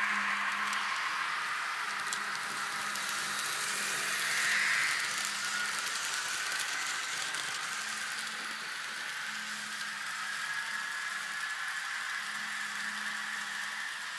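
N-scale model passenger train running on its track: a steady whirring hiss of the locomotive motors and wheels that swells briefly about four seconds in and then slowly fades as the train moves off round the curve, with a faint low hum coming and going underneath.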